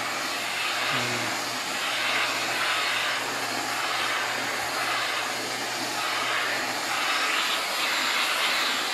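Deerma DX115C handheld vacuum cleaner running steadily while its nozzle is worked over a mattress, the suction noise rising and falling slightly as the nozzle moves.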